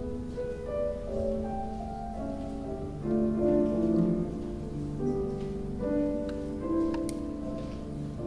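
Piano playing a slow, melodic introduction, one held note after another, louder about three seconds in.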